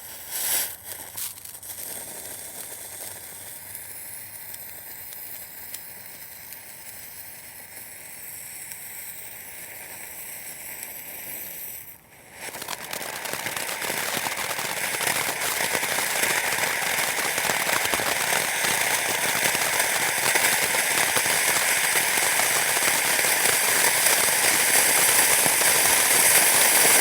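Firework fountain spraying sparks with a crackling hiss, after a sharp pop near the start. About twelve seconds in it drops away for a moment, then comes back louder and denser, slowly growing to the end.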